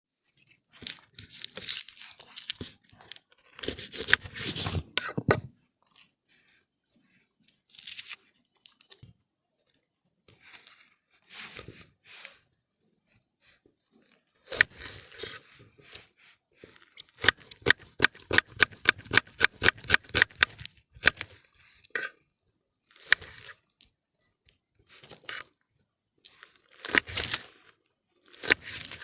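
Cooking preparation: crackly tearing and crunching of dry onion skin and packaging, with a quick run of sharp knife taps on a board, about five a second, through a few seconds in the second half.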